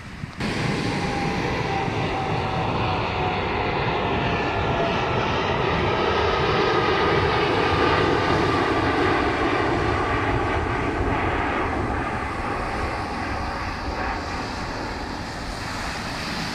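Airliner passing low overhead near the airport: a loud engine rush that builds to a peak about halfway through and then fades, with a whine sliding slowly down in pitch as it goes by.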